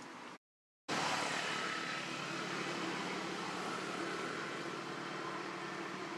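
Steady outdoor background hum and hiss with faint even tones, broken about half a second in by a half-second gap of total silence at an edit.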